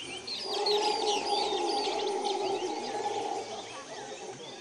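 Mantled howler monkeys roaring in the distant canopy: one long, drawn-out roar that starts about half a second in and fades away near the end. Many birds chirp and call around it in a dawn chorus.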